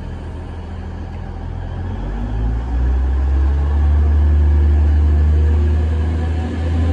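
Diesel engines of a DB class 612 RegioSwinger multiple unit running under load as the train pulls away. A deep, steady drone that grows louder over the first few seconds, then holds.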